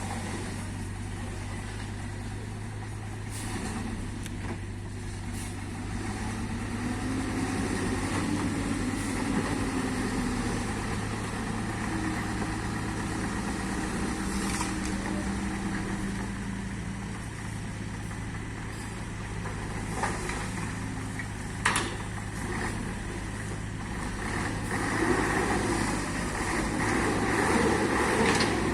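Diesel engines of a Volvo excavator and a dump truck running with a steady low drone, with two sharp knocks about two-thirds of the way through and the sound growing louder near the end.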